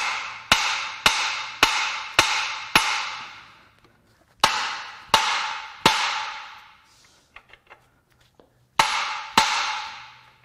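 Hand sledge hammer blows on the steel crank and connecting rod of a blown VW 2.0L TSI EA888 engine, driving out a stuck rod. Each blow rings and fades: a run of six about half a second apart, three more, then two near the end.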